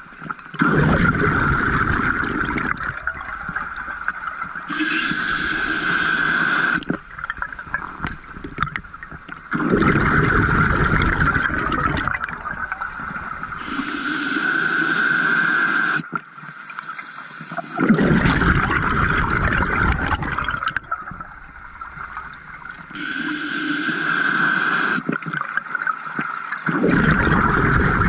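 Scuba diver breathing through a regulator. A hissing inhale alternates with a rush of exhaled bubbles, slowly and evenly, about one breath every nine seconds: three inhales and four exhales.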